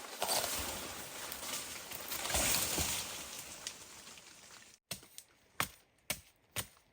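A long rustling noise that swells and fades. Then, in the last two seconds, sharp chopping strokes into wood, about two a second.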